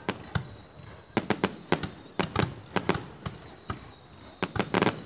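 Aerial rocket fireworks going off: an irregular run of sharp bangs, several a second, often in quick clusters, with the densest cluster near the end.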